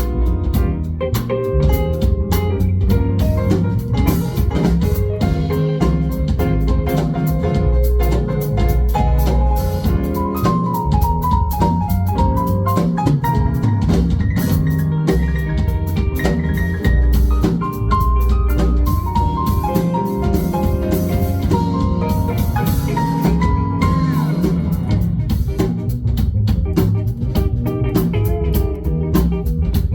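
Live band playing an instrumental funk jam: drum kit and low bass keep a steady groove while a melodic lead line weaves over it through the middle.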